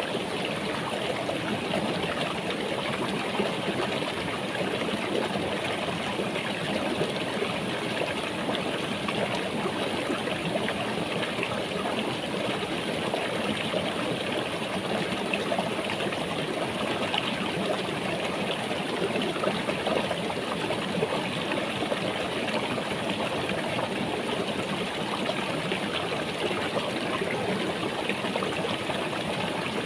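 Small rocky stream running over and between stones: a steady rush of flowing water.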